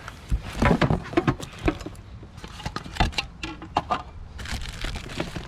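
Objects being handled and rummaged through by hand: irregular clicks, knocks and rustles of small items and packaging being picked up and moved.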